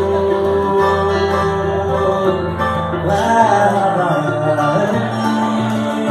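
A samba band playing live, with plucked strings over a steady bass line.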